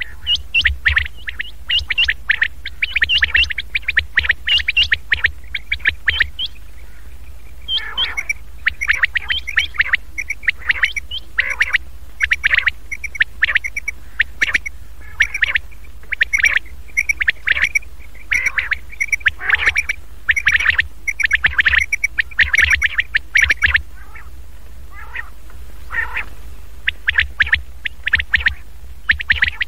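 Common quail calling: rapid clusters of short, sharp notes, a recorded call used to lure quail, with brief pauses about seven seconds in and again near the end, over a steady low hum.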